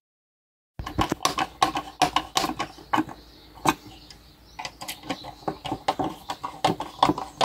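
Rapid, irregular small clicks and taps of a plastic router housing and its screw being handled and fastened back together, several a second, starting about a second in.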